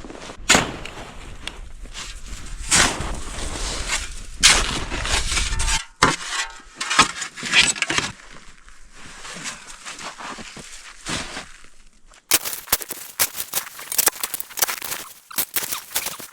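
Crunching steps in snow and sharp knocks and scrapes as a piece of scrap steel is worked loose and pulled out of the snow, with a dense run of clattering knocks near the end.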